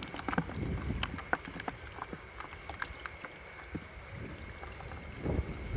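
Wind rumbling on the microphone with water sloshing as someone wades through a flooded rice paddy, with scattered sharp clicks in the first two seconds. A faint steady high tone runs underneath.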